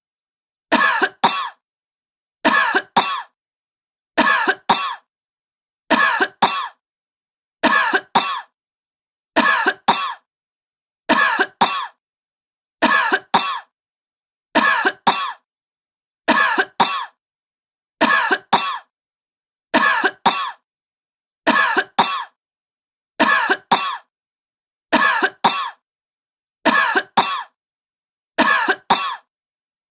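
A woman coughing in pairs: two short coughs in quick succession, then a pause. The same double cough repeats at an even pace about every 1.75 seconds, about seventeen times.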